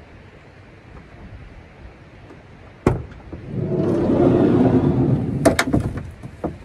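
Sliding side door of a 2020 Freightliner Sprinter van being opened: a click as the latch releases about three seconds in, a rolling rumble as the door slides back along its track, then sharp clacks as it stops fully open.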